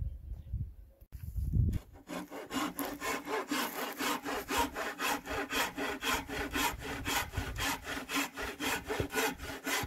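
Handsaw cutting through a wooden board. The saw starts about two seconds in and keeps up steady, rapid strokes, about four a second.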